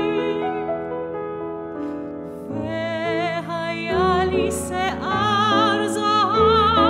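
Grand piano playing alone, then a soprano comes in about two and a half seconds in, singing with wide vibrato over the piano accompaniment.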